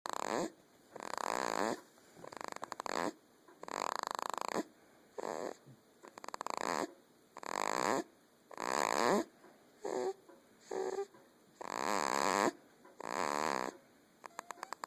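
Snoring: a quick, regular run of rattling snores on both the in and out breaths, about one a second.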